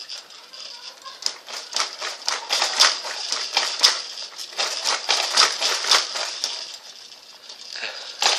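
Baby bouncer rattling and clicking in a quick, fairly even rhythm, about three clicks a second, as the baby bounces in it. The clicking thins out near the end.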